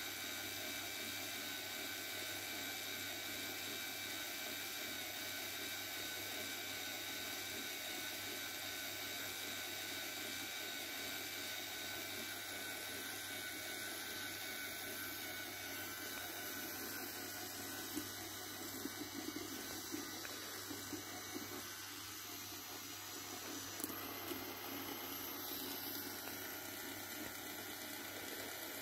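Motor-driven K'nex swing ride spinning at high speed, its motor and plastic gearing whirring steadily, with a few light clicks past the middle.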